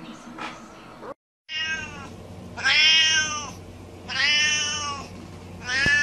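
Seal-point Siamese cat meowing four times: long, drawn-out calls about a second apart, the first softer and the next three loud.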